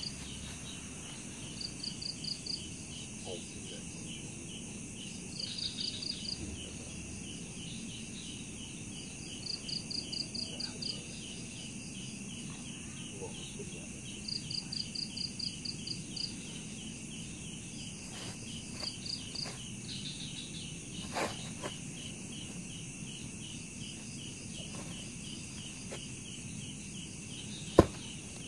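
Night insects and crickets: a steady high buzz with short trains of rapid cricket chirps repeating every few seconds. A single sharp knock near the end.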